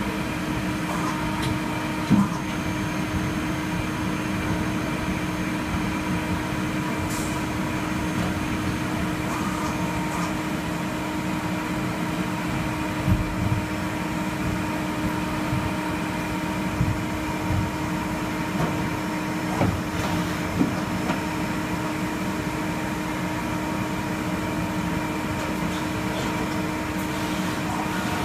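DMG Gildemeister Twin 65 CNC lathe running: a steady mechanical hum with a few held tones, broken now and then by short clunks and clicks.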